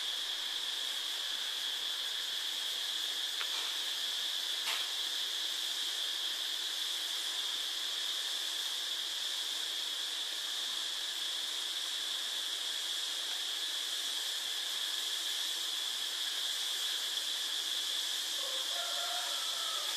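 Steady hiss with a high, even whine running through it, broken only by a faint click or two about four seconds in.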